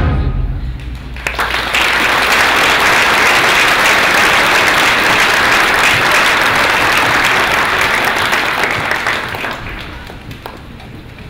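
The concert band's last chord dies away, then the audience applauds. The clapping swells about two seconds in and fades out near the end.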